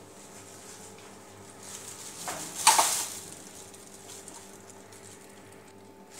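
A brief rustling clatter as a plastic tray holding a plastic bag of frozen food is handled, loudest about two and a half seconds in, over a steady low hum.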